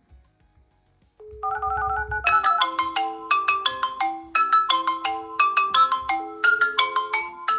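Mobile phone ringing: a ringtone starts about a second in, and about two seconds in a busy, fast marimba-like melody of short repeated notes takes over.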